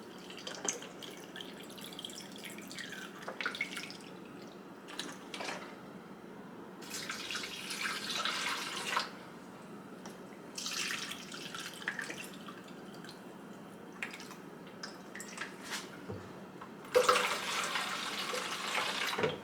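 Vinegar and water being poured and splashing into a plastic humidifier tank in several short spells. The longest and loudest pour comes near the end.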